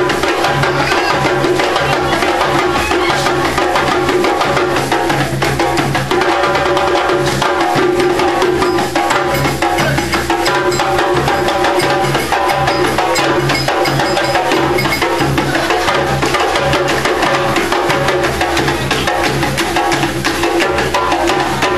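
Live music driven by drums and percussion, the strikes repeating in a dense, steady rhythm over sustained low notes.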